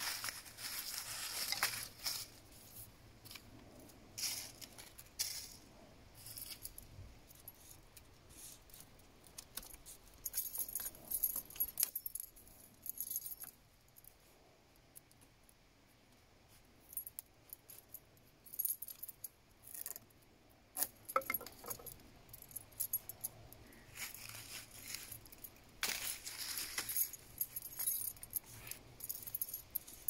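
Thin green withies rustling, scraping and clicking against the stick frame as they are woven through by hand, in irregular bursts with short pauses.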